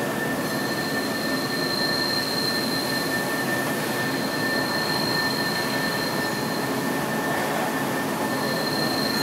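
Mori Seiki MV-45 vertical machining centre running, a steady mechanical hum with two high whining tones; the higher whine cuts out for a moment near the end.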